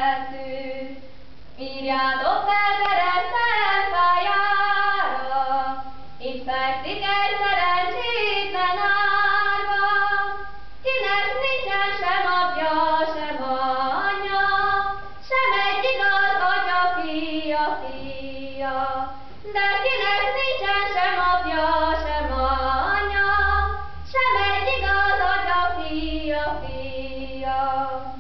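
A high female voice singing a song unaccompanied, in long melodic phrases with short pauses for breath between them.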